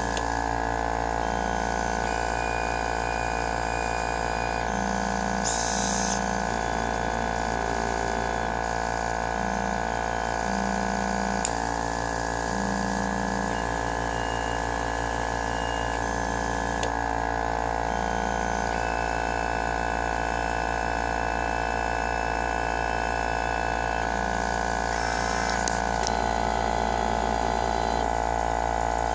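Homemade pick-and-place machine running: a steady mechanical drone of its motors and pump with many constant tones, and short low tones switching on and off every second or so as it works.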